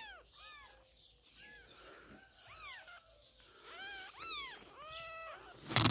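Kittens mewing: a string of short, high-pitched calls, each rising then falling in pitch, several in quick succession. A single sharp knock comes at the very end.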